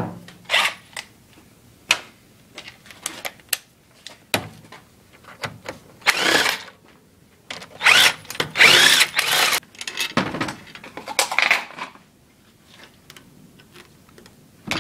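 Metal hand tools working on a bare 3.5 hp four-stroke engine's casing: scattered clicks and knocks, and three longer noisy bursts about six, eight and eleven seconds in, the middle one lasting about a second and a half.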